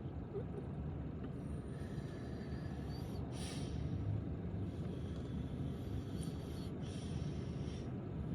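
Steady low background rumble with a couple of faint, brief rustles.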